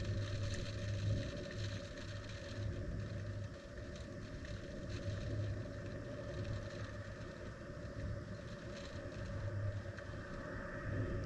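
Steady wind noise buffeting a tornado probe's microphone: a low rumble that swells and fades, with faint scattered ticks of rain.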